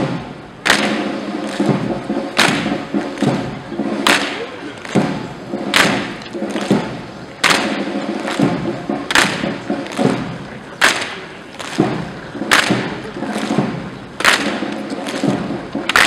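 A column of Evzones marching in step, their hobnailed tsarouchia shoes striking the pavement together in a sharp clack a little more often than once a second, every other step louder.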